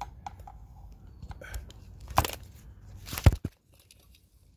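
A 16-foot steel tape measure being worked one-handed: a few small clicks, then two short rattling bursts about two and three seconds in, the second the loudest, as the blade runs out and back. The sound cuts off suddenly soon after.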